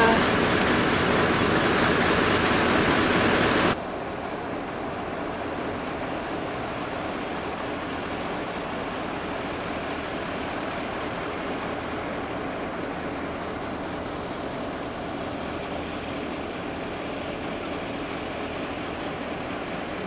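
Steady running noise of a moving vehicle. It is louder for the first four seconds, then drops suddenly to a quieter, even drone.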